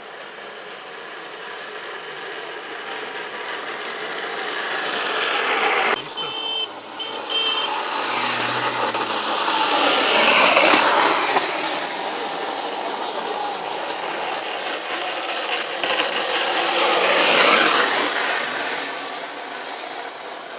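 Wheels of a carruzzuna, a low homemade wooden cart on ball-bearing wheels, grinding and rumbling on asphalt as it rolls fast downhill. The noise swells as a cart passes, loudest about ten seconds in, and swells again near the end.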